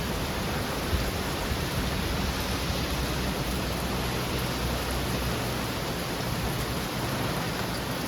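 Heavy rain falling steadily in a thunderstorm, an even hiss with a low rumble underneath.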